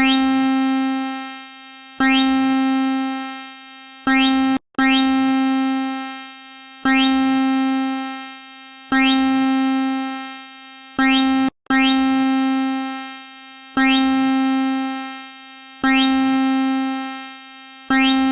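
Synthesized EAS-style emergency alarm tone: the same low, bell-like electronic note struck about every two seconds, each one fading away. The loop cuts out abruptly for a split second about every seven seconds and restarts.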